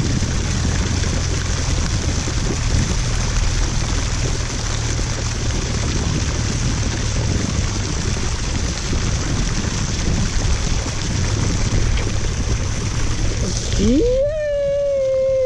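Steady rushing noise of flowing water with a low rumble. Near the end the rush cuts off, and a single drawn-out tone rises, holds for about a second and a half, then drops away.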